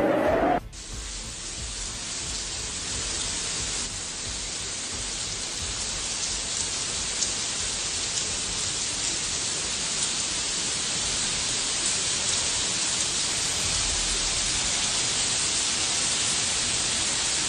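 Heavy rain falling in a steady hiss, getting slightly louder over time. A louder, busier sound cuts off abruptly about half a second in.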